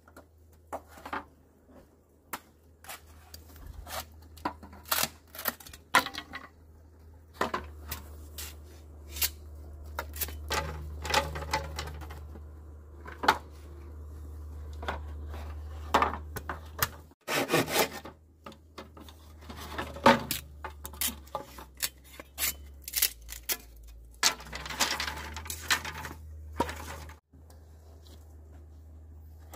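Irregular sharp knocks and clicks, like hand work with tools on wood or bamboo, at an uneven pace with short pauses. A steady low hum runs underneath.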